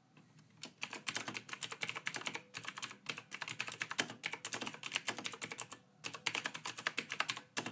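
Computer keyboard typing: quick runs of key clicks with short pauses between them, beginning about half a second in and stopping near the end.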